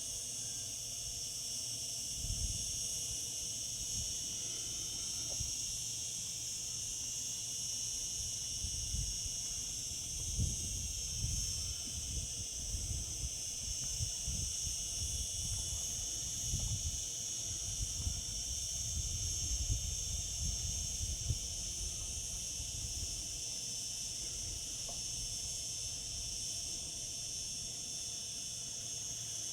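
Cicadas singing in chorus: a steady, unbroken high-pitched drone. Irregular low rumbles come and go through the first two-thirds.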